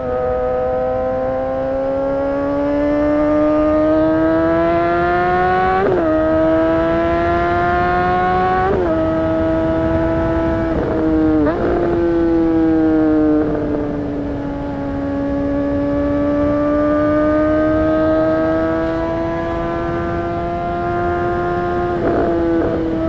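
2008 Honda CBR600RR's inline-four engine under way, its pitch climbing steadily under acceleration and dropping sharply at two upshifts in the first half. After some quick shifts it winds down as the bike slows, then builds slowly again, with one more shift near the end.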